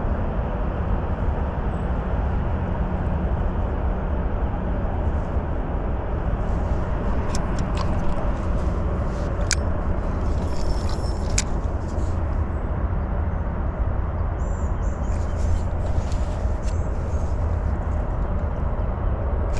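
A steady low rumble, with a few light clicks from a spinning rod and reel being handled about halfway through.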